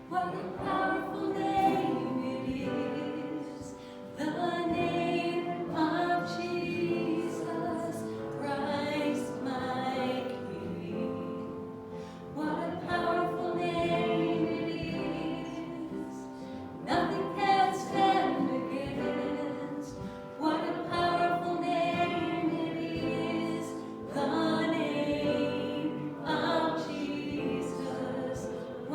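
A group of voices singing a worship song together, in phrases of a few seconds each.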